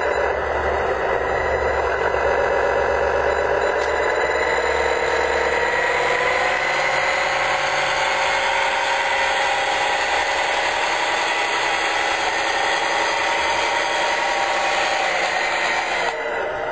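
The 90 W brushless electric motor and gear train of a scale RC model tractor whining as it drives. The pitch sinks and rises with its speed, and there is a brief drop in level near the end.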